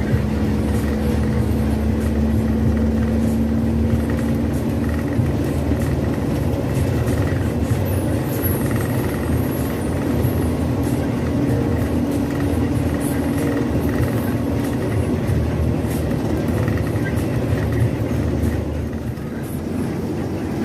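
Inter-city bus running on the road, heard from on board: a steady engine drone with road noise, its low engine note shifting in pitch a few times.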